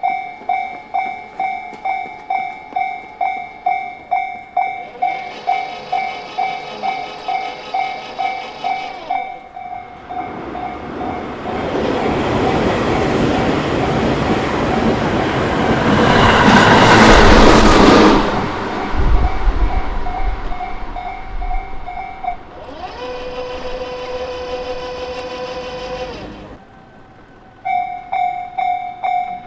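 Japanese railway crossing's electronic warning bell ringing in a fast, steady two-tone pulse while a Tobu Isesaki Line train passes, its wheels and rails swelling to a loud rush and then fading. The bell stops about two-thirds of the way through and starts again near the end, as the crossing warns for another train. A second, higher tone sounds briefly twice.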